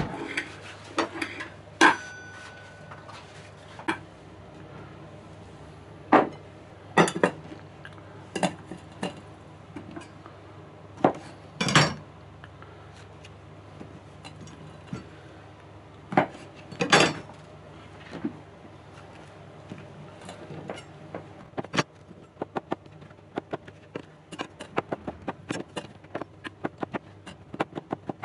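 Kitchen handling sounds: dishes and utensils clinking and knocking on a plastic cutting board, with a handful of sharp knocks, the loudest about twelve seconds in. In the last few seconds a kitchen knife taps quickly on the cutting board, several times a second, slicing king oyster mushrooms.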